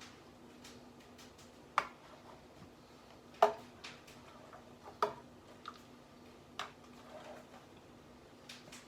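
Sharp metal knocks and clinks of a roasting pan being turned on an oven rack: four distinct knocks about a second and a half apart, the loudest about halfway through, with softer ticks between, over a faint steady hum.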